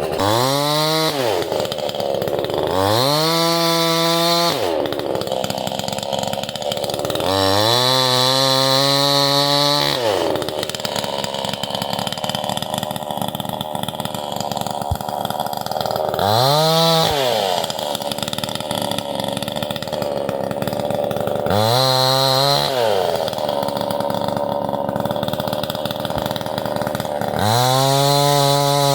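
Two-stroke chainsaw running hard, likely cutting wood. It climbs to full speed about six times, holds briefly, then drops back to a lower, rougher running speed between each rise.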